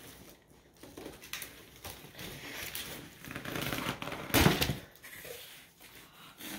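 Cardboard shipping box being pulled open by hand: flaps scraping and crinkling, with a loud crunch of cardboard about four seconds in as a flap is pulled back.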